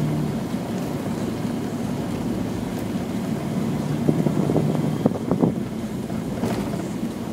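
Rally car driving on a gravel road, heard from inside the cabin: engine running under a constant rumble of tyres and road noise, with a few sharp knocks about four and five seconds in.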